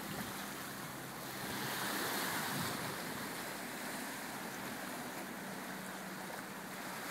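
Small waves washing onto a sandy shore and breaking against rocks: a steady hiss of surf that swells a little about a second and a half in.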